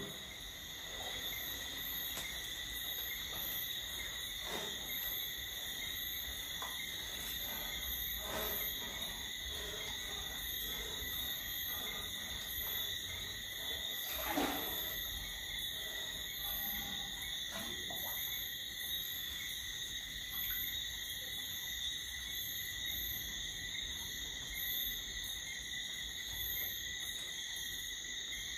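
Steady night chorus of calling insects, holding several unchanging high pitches, with a fast pulsing at the very top. A few faint knocks come through it, the loudest about halfway through.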